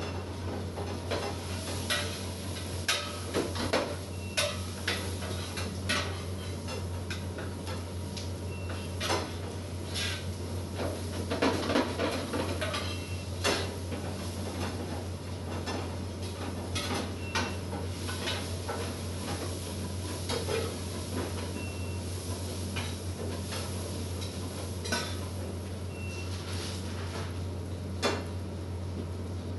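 Metal utensils clanking and scraping against stockpots and pans at a commercial kitchen range, in irregular knocks with a busier clatter about halfway through, over a steady low hum.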